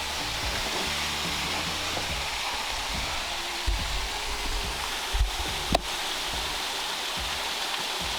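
Steady rushing of a waterfall, with a couple of low thumps in the middle and one sharp click a little before six seconds in.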